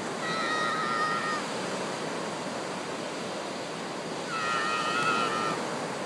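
Ocean surf washing steadily onto the beach. Over it come two long high-pitched cries, each about a second long: one just after the start and one about four seconds later.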